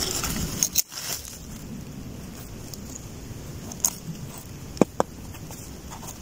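A knife scraping and cutting at the stem base of a freshly picked bolete mushroom to clean off the soil, with soft crackling of dry leaves. Three short sharp clicks come about four to five seconds in.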